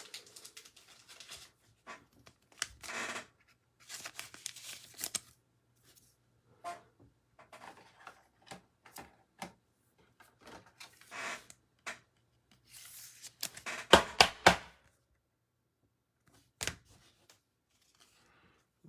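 Trading cards and a foil card-pack wrapper being handled: irregular rustling and crinkling with sharp card clicks, the loudest a quick cluster of clicks about fourteen seconds in.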